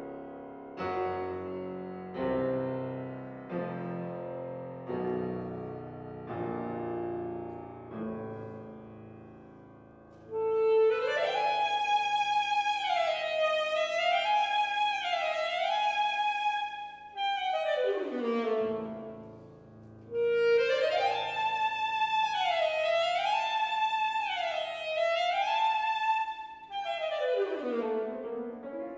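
A Steinway grand piano plays a series of struck chords, each left to die away. About ten seconds in, an alto saxophone enters over a low repeated piano figure. It plays a loud phrase that rocks back and forth between neighbouring notes and ends in a downward slide, then repeats the phrase.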